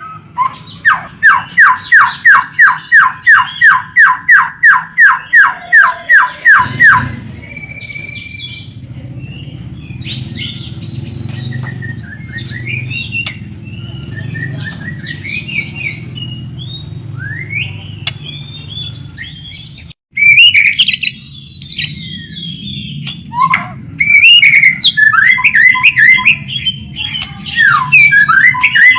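White-rumped shama (murai batu) singing: a fast, even run of repeated notes, about four a second, for the first several seconds, then varied chattering and whistled phrases, quieter at first and loud again after a brief break about two-thirds of the way through.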